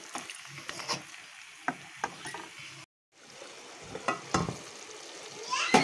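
A spatula scrapes and stirs chicken pieces frying in a metal pot, with clicks and scrapes over a sizzle. After a brief break, a stainless steel lid clanks onto the pot with a metallic ring near the end.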